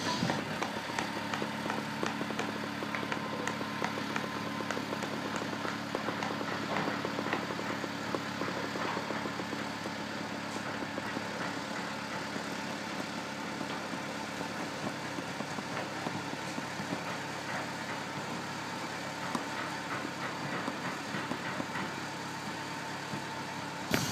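Engine of a heavy machine idling with a steady low hum, under scattered light knocks and clicks; the hum fades after about two-thirds of the way through.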